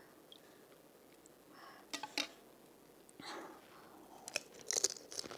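Crisp panipuri (puri) shells cracking a couple of times, then a burst of crunching as a filled puri is bitten and chewed close to the microphone near the end.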